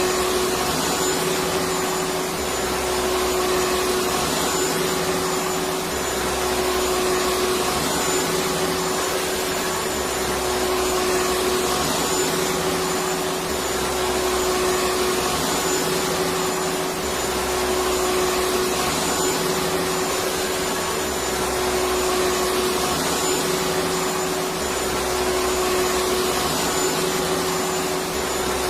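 Electric vacuum cleaner running steadily: a continuous dense whoosh with a steady motor hum. A low rumble swells and fades about every three to four seconds.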